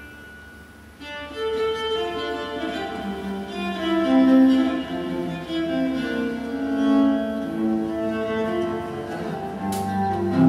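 Instrumental music, likely bowed strings, playing long held notes that shift in pitch. It is soft for the first second, then comes in much louder about a second in.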